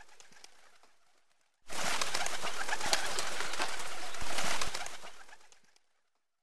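Flock of pigeons: a dense, clicking flutter that cuts in suddenly about two seconds in, holds for about three seconds and then fades away, after a fainter stretch that dies out near the start.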